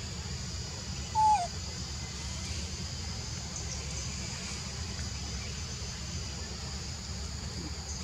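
One short, clear animal call about a second in, holding its pitch and then dropping at the end, over a steady high insect drone and a low rumble.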